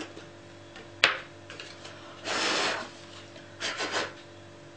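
Hand-handling of craft materials: a sharp plastic click about a second in as the lid goes onto the small jar of clear embossing powder, then about half a second of paper or card sliding and rubbing, and two short rustles as the card is handled.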